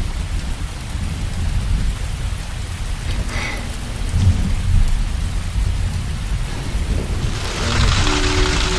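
Heavy rain falling, with a deep rumble of thunder underneath. Near the end the downpour turns louder and hissier as hail sets in.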